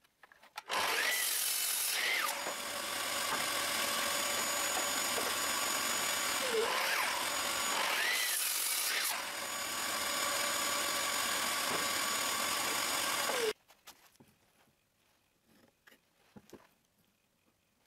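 Sliding miter saw starting up and cutting through an oak board, the motor running for about twelve seconds with a steady whine. It stops suddenly, followed by faint handling of the wood.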